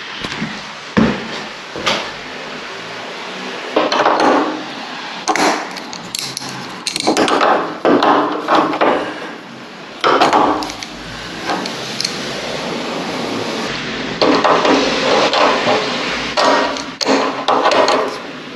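Steel panel radiator being tapped and knocked with hand tools while it is set level on its wall brackets and its fittings are worked with an adjustable wrench. The knocks and scrapes come in short, repeated clusters.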